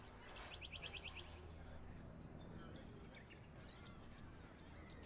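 Faint birds chirping outdoors, with a quick trill of about eight short high notes about a second in, over a low steady background ambience.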